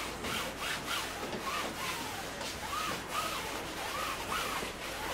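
A hand rubbing and smearing wet oil paint across a stretched canvas in repeated strokes, about three a second, with small squeaks of skin on the paint surface.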